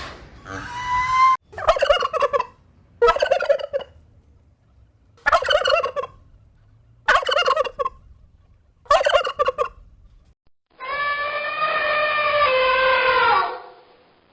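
Domestic turkey gobbling, five rapid warbling gobbles about two seconds apart. Near the end a held musical tone sounds for about three seconds.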